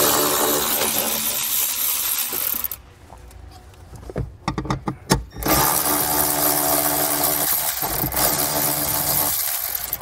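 Cordless electric ratchet running in two bursts of a few seconds each, backing out 10 mm bolts from a plastic trim panel; the motor gives a steady whine during each run, with a few clicks in the pause between.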